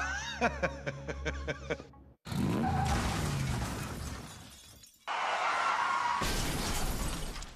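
Crash-and-shattering-glass sound effect in two loud noisy hits, the first fading out over a couple of seconds with a falling low tone and the second holding steady, with music under it; voices are heard briefly before the first hit.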